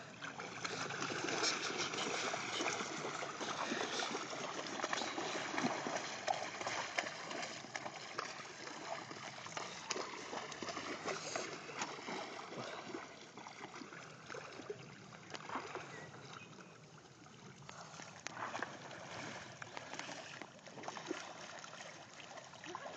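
Lake water splashing and sloshing as Shetland ponies and people wade and swim through it. It is busier in the first half, dies down for a few seconds past the middle, then picks up again.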